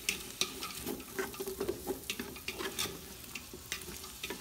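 Wooden spoon stirring sliced onions frying in hot oil in a large metal pot: irregular scrapes and clicks of the spoon against the pot over a steady sizzle.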